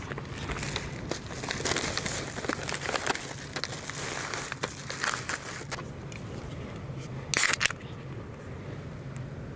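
Crinkling and rustling handling sounds with scattered clicks over the first six seconds, then a short louder rustle about seven and a half seconds in, over a steady low hum.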